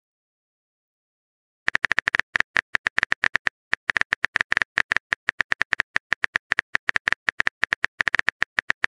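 Texting-app typing sound effect: a rapid run of short keystroke clicks, several a second, starting after a silent pause of nearly two seconds.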